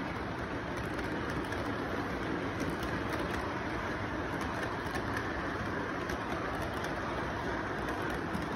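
Model freight train rolling past on its track: a steady rumble from the wheels and motor, with light irregular clicking.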